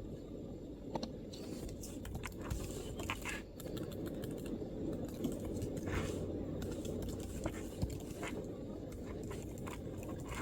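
MacBook keyboard being typed on: soft, irregular keystrokes with uneven gaps, over a steady low background rumble.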